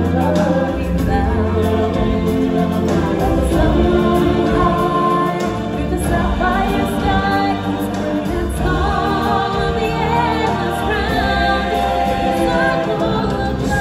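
Stage-show music: a choir singing over an accompaniment with a strong bass.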